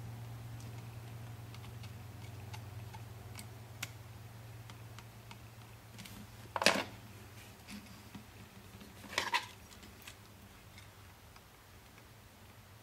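Small clicks and taps of metal tweezers against the plastic chassis and parts of an N-scale model train motor car, as thin styrene strips are pushed in under its contact strips; two sharper, louder clicks come about six and a half and nine seconds in. A low steady hum runs underneath.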